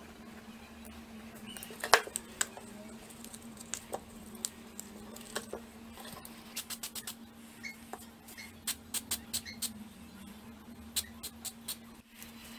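A snap-off utility knife working against a plastic disc and card: scattered sharp clicks and scrapes, the loudest about two seconds in, with quick runs of several clicks later on. A steady low hum lies underneath.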